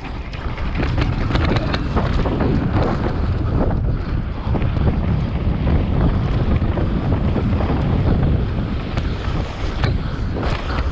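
Wind buffeting the microphone of a mountain bike ridden fast down a dirt forest trail, with a steady tyre rumble and frequent rattles and knocks from the bike over rough ground.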